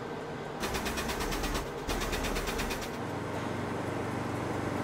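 Air-operated truck jack's pump working in two bursts of about a second each, a rapid even pulsing of about a dozen strokes a second, as its valve is opened to lift the truck; then a steady low hum.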